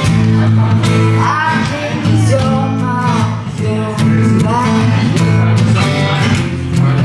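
Live acoustic duo: two acoustic guitars played with sung vocal lines over them.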